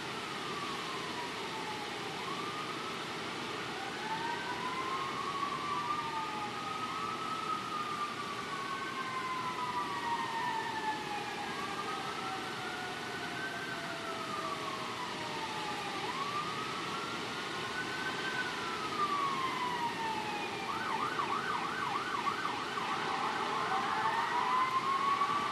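Emergency vehicle sirens wailing in slow rising and falling sweeps, two or more overlapping, with a fast warbling yelp near the end and growing louder. Beneath them a steady rush of hurricane wind through tree leaves.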